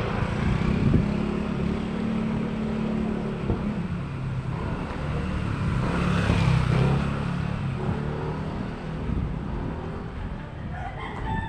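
Motor vehicle engine drone in a street, loudest about a second in and again around the middle.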